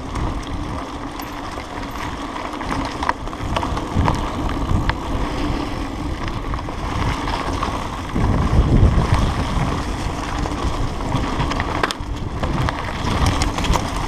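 Mountain bike riding fast along a dirt forest track: tyres rolling on the dirt, scattered clicks and rattles from the bike over bumps, and wind rumbling on the microphone, heaviest about eight seconds in.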